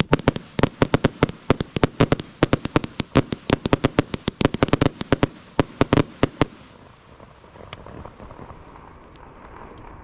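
Consumer firework cake firing, a fast run of sharp bangs several a second that stops about six and a half seconds in, followed by a fainter, steady hiss.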